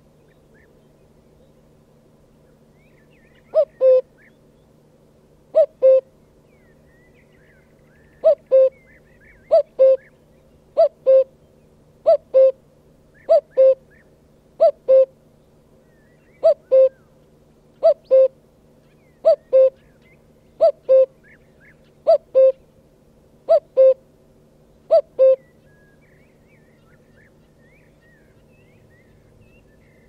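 Cuckoo calling a two-note "cu-coo" about fifteen times at steady intervals, the second note of each pair a little lower, before falling silent.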